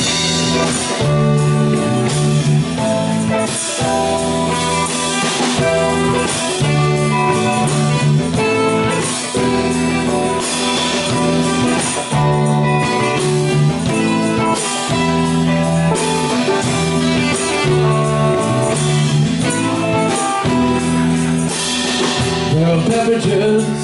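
Live band playing an instrumental passage: electric guitar, keyboard and drum kit over a steady beat, with no singing.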